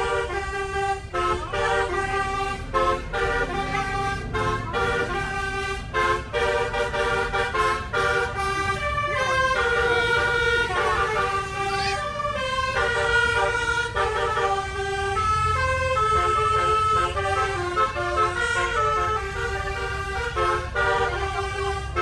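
Telolet horn on a tour bus playing a melody: a long run of multi-tone air-horn notes stepping in pitch several times a second, over the low rumble of the bus.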